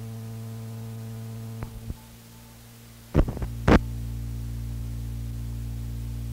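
Steady mains hum with a buzzy stack of overtones on an old reel-to-reel tape recording, broken by two small clicks about one and a half seconds in, a quieter stretch, then two loud clicks just after three seconds, the mark of the recording being stopped and restarted between segments. After the clicks the hum goes on louder.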